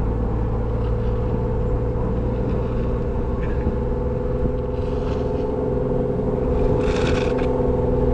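Jeep Wrangler running steadily at speed through snow, a steady engine drone with a couple of brief hisses about five and seven seconds in.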